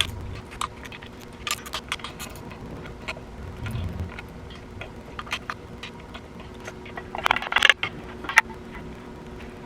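Metal parts and tools clinking and rattling during engine disassembly: scattered sharp clicks, with a short burst of rattling about seven seconds in, over a faint steady hum.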